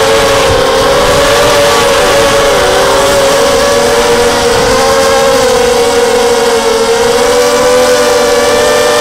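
FPV miniquad's brushless motors and propellers whining in flight, several close tones drifting up and down in pitch with the throttle, over a rush of wind on the onboard microphone.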